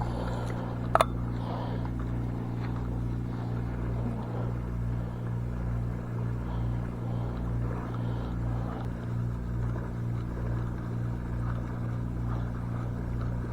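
A steady, low motor hum at an unchanging pitch, with one sharp click about a second in.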